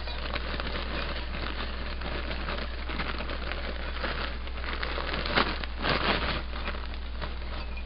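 Frozen vegetables being shaken out of a plastic bag into a measuring cup: continuous crinkling of the bag and pattering of frozen pieces, with a few louder rattles between five and six seconds in.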